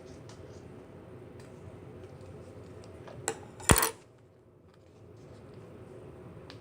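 Hard plastic parts of a key wristband being handled: a light click, then a single loud, sharp clack about three and a half seconds in, as the small casing is worked open.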